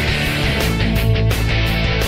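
Rock music with electric guitar over a steady drum beat.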